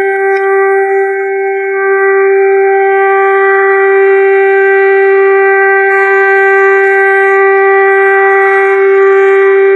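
Civil air-defence siren sounding China's preliminary air-raid alert (防空预先警报), a loud, steady tone held at one pitch without rising or falling.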